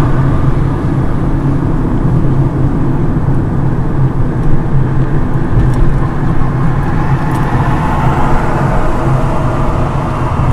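A car's engine and road noise heard from inside the cabin while driving: a steady low drone.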